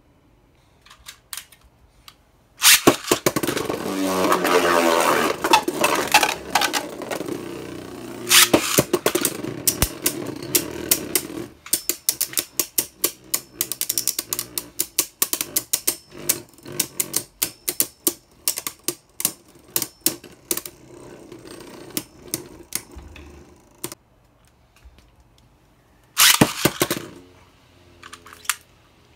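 Two Beyblade Burst tops launched into a plastic stadium: a sudden loud rip and whir at the launch, a pitch that falls over the next few seconds, then the tops clashing and rattling against each other and the stadium walls in rapid sharp clicks. A last loud burst of clatter near the end.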